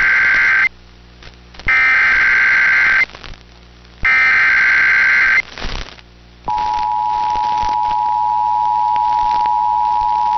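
Emergency Alert System tones: three bursts of SAME header data tones, each about a second and a half long, then the steady two-tone attention signal starting about six seconds in. Together they signal the start of an emergency alert, here a severe thunderstorm warning.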